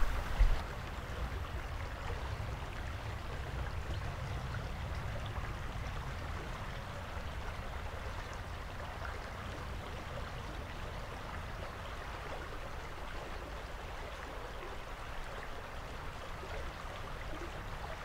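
Shallow running water flowing steadily over a gravel bed, an even trickling babble.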